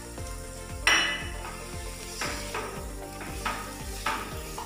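Spatula stirring and scraping mashed boiled potato and sautéed onion in a frying pan over a light sizzle. The scrapes come every half second to a second, the loudest about a second in.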